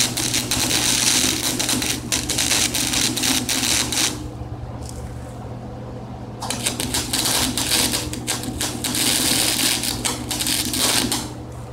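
115-volt Handy MIG flux-core welder arc crackling and spitting as it welds links of light-duty steel chain. It comes in two welds of about four seconds each, with a pause and a brief spit between them.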